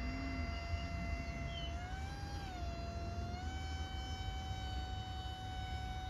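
RC paramotor's motor and propeller buzzing with a steady high whine. About two seconds in, the pitch rises briefly, dips, then settles a little higher as the throttle is changed. A low rumble runs underneath.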